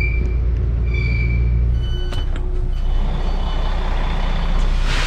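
Train door warning beeps: two high beeps about a second apart, then softer tones and clicks from the door mechanism, over the train's steady low rumble. A loud hiss builds near the end.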